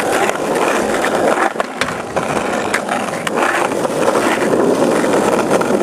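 Skateboard wheels rolling on a hard surface in a steady rumble, with a few sharp clacks of the board about a second and a half in and again around three seconds.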